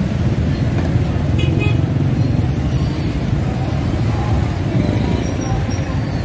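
Steady low rumble of road traffic and street bustle.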